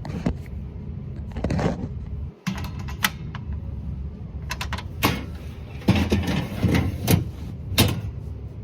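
Irregular sharp metal clicks and clunks from a Craftsman tool chest's key-operated cylinder lock being locked and unlocked.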